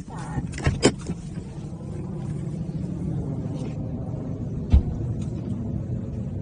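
Car engine idling with a steady low rumble. Sharp clicks and knocks about a second in as a car door is opened, and one heavy thud a little under five seconds in, typical of a car door being shut.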